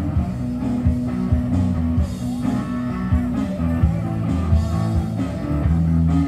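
A rock band playing: guitar and bass over a drum kit with a steady beat.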